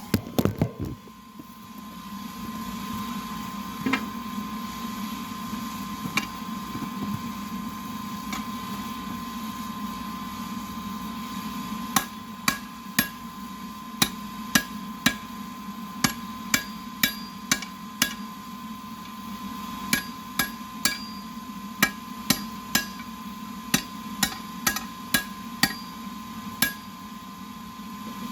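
Forging hammer striking metal on an anvil: a few isolated blows, then from about halfway in a long, irregular run of ringing strikes, roughly one or two a second, over a steady hum.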